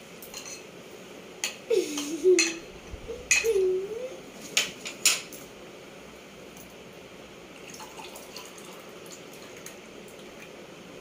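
A steel spoon clinking against a glass bowl and glasses while sherbet is stirred: several sharp clinks in the first five seconds, then only a few faint ones. A short hum-like voice sounds twice, around two and three and a half seconds in.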